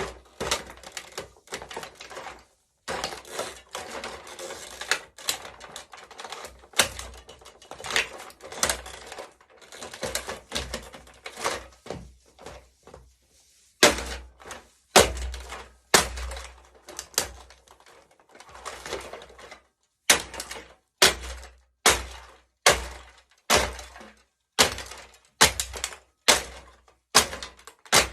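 Plastic remote-controlled toy car being crushed under high heels: repeated sharp cracks and crunches of breaking plastic, many with a dull thud from the heel. The cracks come in dense clusters at first, then as separate strokes about once a second from about halfway through.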